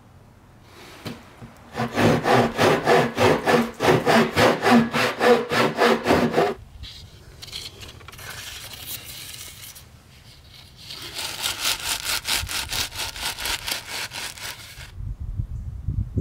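Hand saw cutting through a cardboard concrete form tube in two bouts of quick, even back-and-forth strokes, about four to five a second. The second bout, near the end, sounds brighter than the first.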